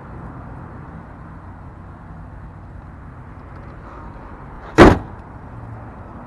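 An SUV's hood is slammed shut, a single loud bang nearly five seconds in, over a steady low hum.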